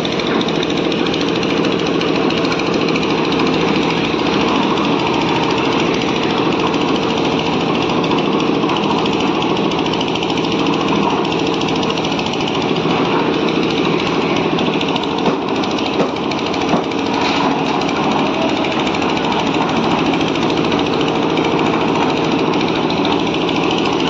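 A loud machine on a construction site running steadily without a break, with a fast, even chattering pulse.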